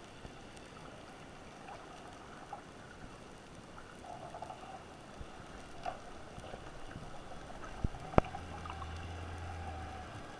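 Underwater ambience of the sea: a steady faint hiss with scattered small ticks. About eight seconds in come two sharp clicks close together, the loudest sounds, followed by a low hum that lasts about two seconds.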